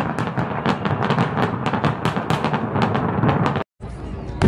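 Fireworks display going off: a dense, rapid barrage of bangs and crackles over a low rumble. The sound cuts out for a moment about three and a half seconds in, then returns fainter with rumbling and crackling.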